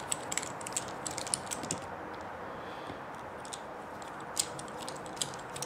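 Scattered light clicks and taps of small plastic and metal RC axle parts being handled and fitted together by hand, a few more in the first second and a couple of sharper ones near the end.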